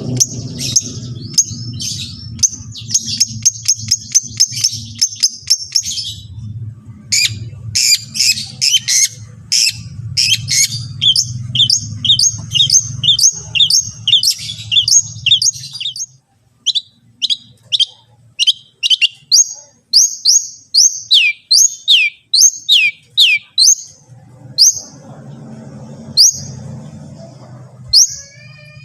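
Long-tailed shrike (cendet) singing a fast, varied chattering song: rapid runs of high chirps, then a long series of sharp downward-sweeping whistled notes at about two to three a second. A low hum sits underneath for much of it and drops out around the middle.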